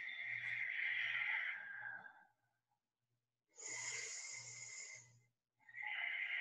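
A person breathing slowly and audibly in long, hissing breaths, three of them with short pauses between.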